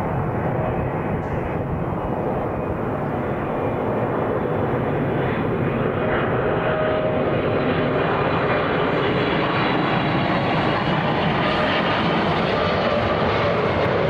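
EVA Air Boeing 777-300ER on final approach with gear down: its twin GE90 turbofans make a steady jet rumble that grows gradually louder as the airliner nears. Whining fan tones ride on top of the rumble.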